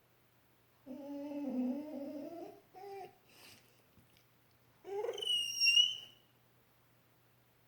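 A dog whining: a wavering, moaning whine about a second in, a short one near three seconds, then a loud high-pitched whine that rises sharply and holds briefly.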